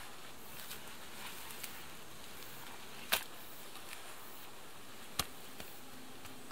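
Hands working on a mud-and-stick wall give two sharp clicks, one about three seconds in and a softer one about two seconds later, with a few faint ticks between, over a steady faint hiss.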